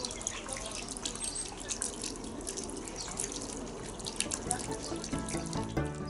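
Small birds give rapid, high, short chirps and ticks, many a second, over a faint hiss. Background music comes in about five seconds in.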